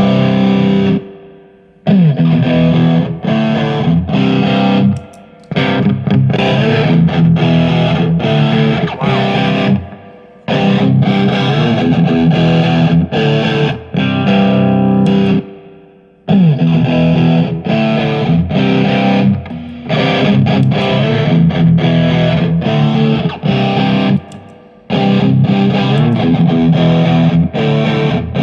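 Distorted electric guitar playing rock riffs through a Marshall JCM 2000 amp, driven by a Maxon OD-9 overdrive pedal. The riff is played in repeated phrases of a few seconds, each ending in a brief stop.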